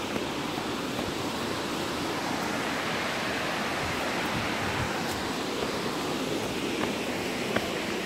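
Steady rushing of a waterfall heard through forest, swelling a little in the middle, with a few faint clicks.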